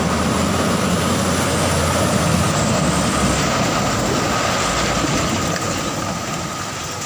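A small dump truck's diesel engine runs as the truck drives slowly through floodwater on a broken road: a steady, dense noise over a low hum, easing slightly near the end.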